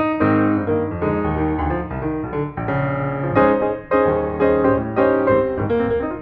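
Piano music: a flowing run of notes over longer-held low notes.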